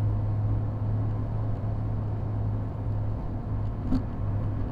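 Steady low drone of engine and road noise heard inside the cabin of a moving 1994 Honda Civic, with a faint click near the end.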